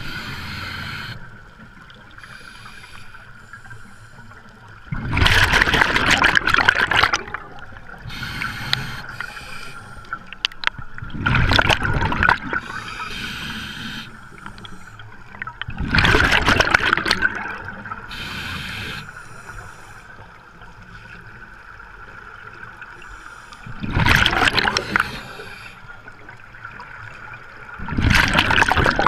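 Scuba diver breathing through a regulator underwater: five loud bubbling rushes of exhaled air, each a second or two long and a few seconds apart, with a quieter hiss of inhaling between them.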